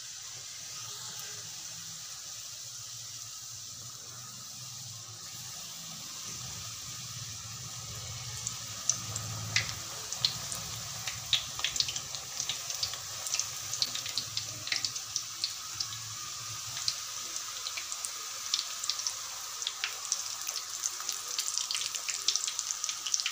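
Potato samosas deep-frying in hot oil in a kadai: a steady sizzle, with crackling pops growing thick from about eight seconds in as more samosas go into the oil.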